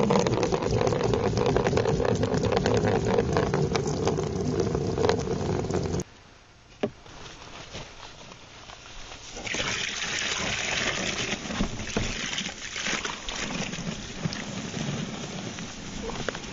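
Water poured from a plastic milk jug into a plastic mortar tub in a steady gush, which stops suddenly about six seconds in. After a short lull, dry mortar mix is poured into the tub with a sandy hiss.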